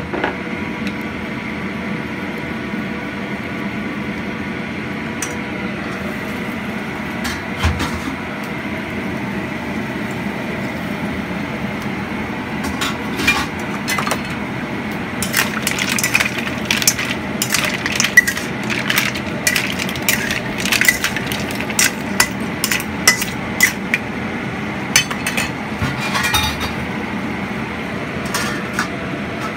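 Mussel shells clinking and rattling against a metal wok as they are stirred, a dense run of sharp clinks through the second half over a steady background hum.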